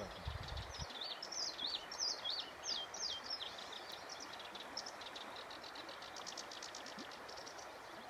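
Stream water running steadily, with a small songbird calling over it: quick up-and-down chirps for the first few seconds, then a fast run of short high ticks.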